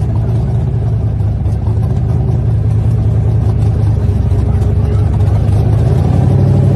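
An engine running steadily with a low, even hum, getting a little louder from about six seconds in.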